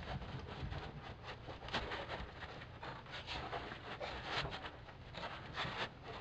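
A roll of Frost King self-adhesive foil duct insulation being handled and unrolled: irregular rustling and crinkling of the foil, several small crackles a second.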